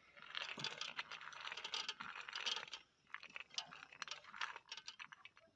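Cashew nuts scraped by hand across a plate and rattling off it: a dense crackly scraping for about three seconds, then scattered clicks.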